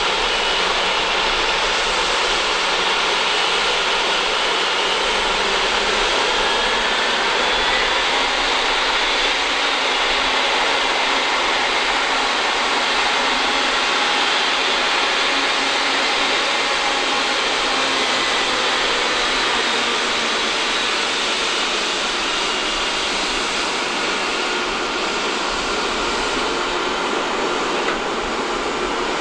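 Boeing 777-200ER's twin jet engines running at low thrust as it taxis: a steady jet noise with a faint high whine, easing slightly in the last third.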